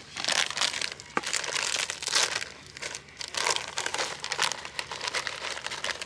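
Plastic bag or food packaging crinkling and rustling as it is handled and rummaged through, a continuous crackle that tails off at the end.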